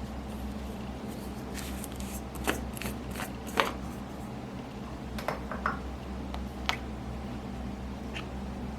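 Slime being worked by hand, giving a handful of short sticky clicks and pops over a steady low hum.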